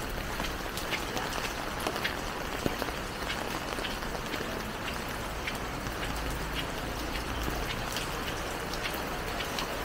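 Steady rain falling, with individual drops ticking close by and a low rumble underneath, a little stronger midway.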